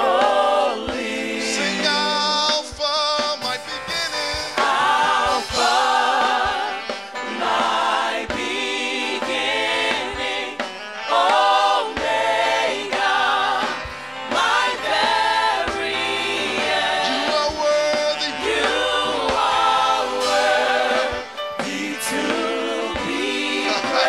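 Gospel worship song sung by a group of voices over musical accompaniment, with a low bass line stepping under the singing.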